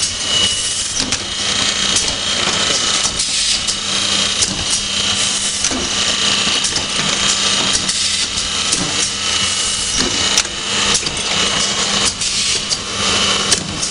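Automatic paint brush finishing and packaging line running: a steady machine hum under a dense, irregular clatter of small mechanical clicks.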